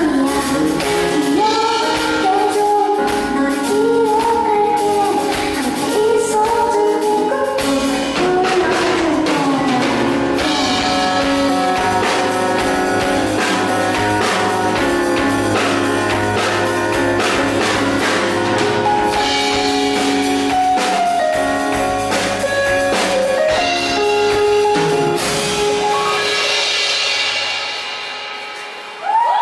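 Live pop song: a woman singing over a Yamaha S90 ES stage keyboard and a drum kit. The voice gives way to the keyboard and drums about ten seconds in, and the music fades out in the last couple of seconds as the song ends.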